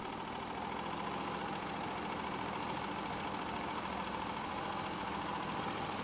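Portable band sawmill running steadily, its Briggs & Stratton V-twin engine under load while the band blade cuts through a log.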